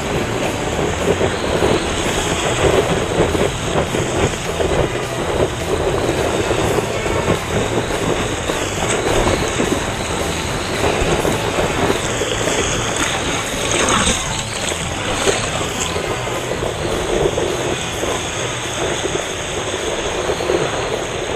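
Seawater rushing and splashing over the nose of a longboard as it is paddled through broken whitewater, heard close to a camera mounted on the board. A loud, continuous churning wash with constant small splashes.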